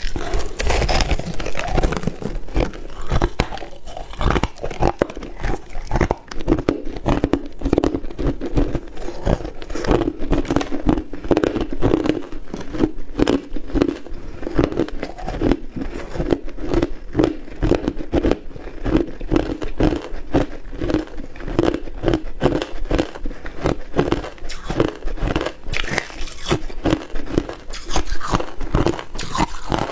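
Hard frozen ice bitten and chewed close to the microphone: a crunching bite at the start, then steady, rapid crackling crunches as the ice is ground between the teeth.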